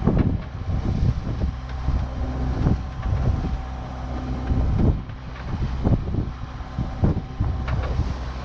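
A sailboat's inboard diesel engine runs steadily while motoring into a head sea, under repeated gusts of wind buffeting the microphone and waves slapping the hull.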